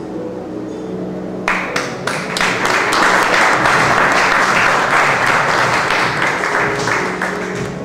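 Audience applauding: the clapping starts about a second and a half in, builds, then thins out near the end, over background music.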